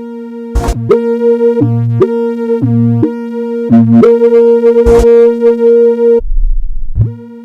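Synthesized speaker-cleaning tone, meant to push water out of a phone speaker. A steady buzzy tone with many overtones runs under a lower tone that switches on and off about once a second. Sharp clicks cut in a few times. About six seconds in, it drops to a very deep hum, and the buzzy tone comes back near the end.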